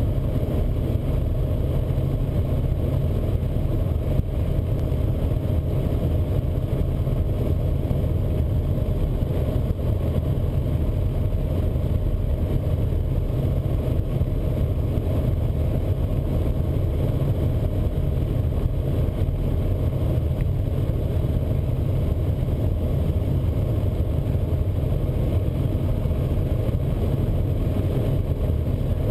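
Helicopter engine and rotor noise heard inside the cockpit in flight: a loud, steady, low drone with no change in pitch.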